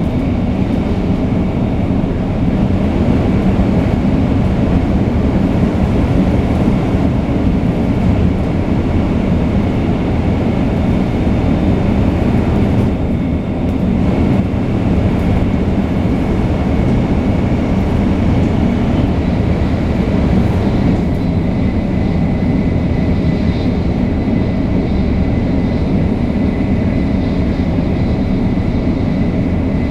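A 500 series Shinkansen with Toshiba GTO-VVVF traction gear running at speed between stations. Its wheels and motors give a steady heavy rumble, with a faint steady high whine.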